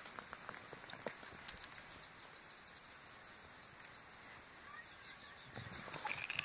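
Faint outdoor background hiss, with a few soft ticks in the first couple of seconds and a slight low rise near the end.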